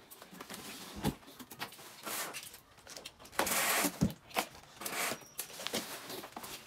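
Cardboard box and packing being handled: rustling and scraping with a couple of dull knocks, the loudest a long scrape about three and a half seconds in.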